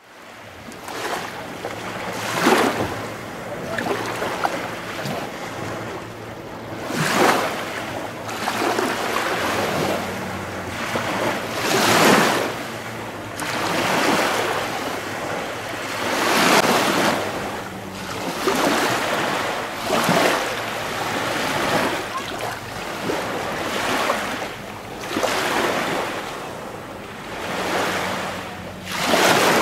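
Water waves washing in, swelling and falling away about every four to five seconds, with some wind.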